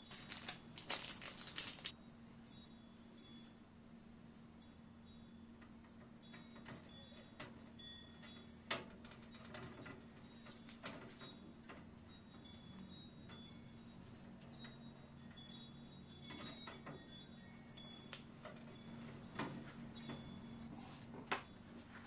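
Faint scattered clicks and small metallic clinks of screws and a screwdriver as a motherboard is screwed down into a PC case, over a steady low hum.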